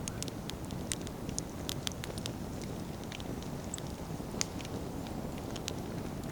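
Wood bonfire burning: a steady low rush of flame under frequent sharp crackles and pops from the burning firewood, with one louder pop about four and a half seconds in.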